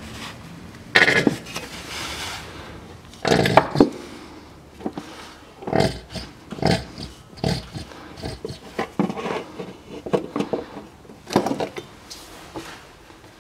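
Plastic bottle of gear oil glugging as it is poured upturned straight into the transfer case filler. There are louder glugs about one and three and a half seconds in, then a run of shorter ones about two a second.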